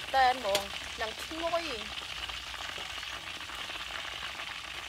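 Chicken legs sizzling steadily in hot oil in a large wok over a wood fire. A voice is heard briefly over the sizzling in the first two seconds.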